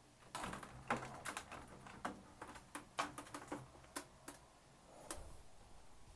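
An irregular run of sharp clicks and taps, a dozen or more over about five seconds, with hard plastic parts being handled.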